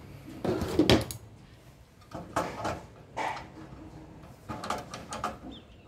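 Metal clinks and knocks of an 8 mm wrench being handled and fitted onto the nut joining the heat exchanger pipe to the water valve of a gas water heater. The loudest knocks come about half a second to a second in, with lighter taps after.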